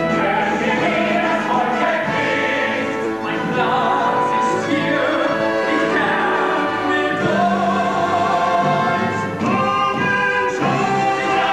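Musical-theatre cast singing with a choir and orchestra, several voices overlapping over the accompaniment.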